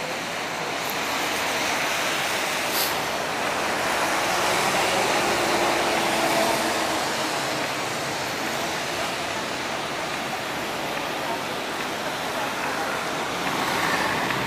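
City street ambience: steady road traffic, louder for a few seconds near the middle, with indistinct voices of passers-by.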